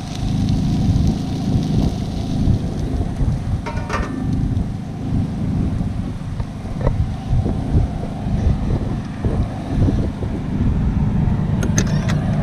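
Wind buffeting the microphone: a loud, uneven low rumble, with a few faint clicks near the end.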